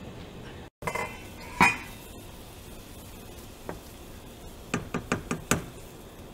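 A spoon knocking against a stainless steel pot while stirring ginger slices in boiling water. There is one loud knock early on, then a quick run of about six clinks near the end, over a steady background hiss.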